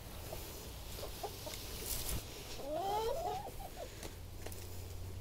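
Backyard hens clucking softly over squash scraps, with one longer wavering hen call about three seconds in.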